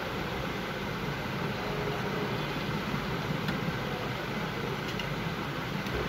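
Steady rushing background noise with a low hum that holds level throughout, and a few faint ticks near the end.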